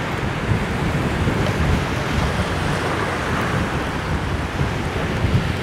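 Small waves breaking and washing in on a rocky shore, with wind buffeting the microphone in uneven low rumbles.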